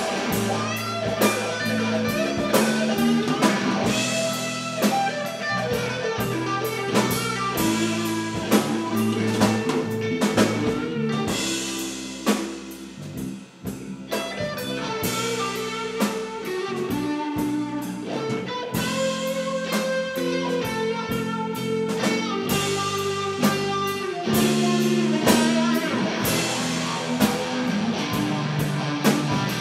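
Live rock band playing an instrumental passage with no singing: electric guitar lines over bass guitar and a drum kit. The band drops down briefly a little before halfway, then comes back in full.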